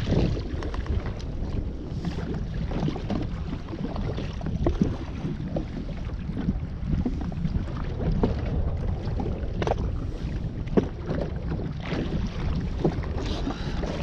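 Wind buffeting the microphone and water slapping against a jet ski's hull on open sea, with a few sharp knocks of gear handling, the loudest about ten seconds in.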